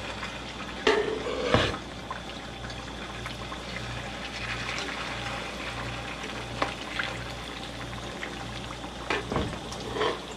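Hot cooking oil sizzling and bubbling in a pan on the stove, with a few short knocks and clicks from metal tongs being handled, about a second in, around the middle and twice near the end.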